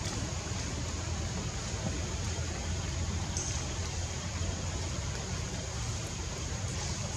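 Steady outdoor background noise with a low rumble underneath and a few faint ticks.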